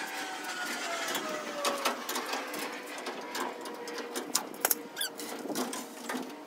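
Sped-up sound of a VW bus body being turned on a homemade rotisserie: a quick jumble of clicks and squeaks, with a tone sliding down in pitch over the first two seconds.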